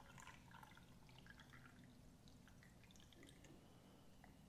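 Faint trickle and drips of water poured from a small glass jar into a large glass jar of swollen solidifying gel.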